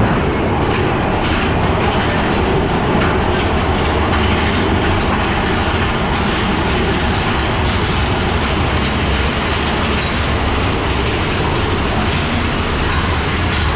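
Big Thunder Mountain Railroad mine-train roller coaster cars running along the track through a cave: a steady, loud rumble of wheels on rail.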